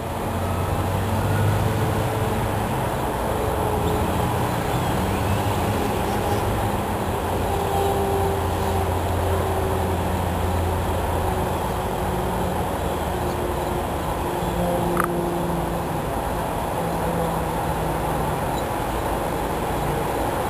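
Steady low mechanical rumble with a shifting engine hum, like motor vehicles running, and a single sharp click about three-quarters of the way through.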